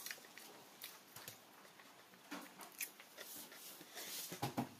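Soft, irregular clicks and rustles of eating by hand: fingers picking at crumbled egg on a banana leaf, with chewing. A louder cluster of clicks comes about four seconds in.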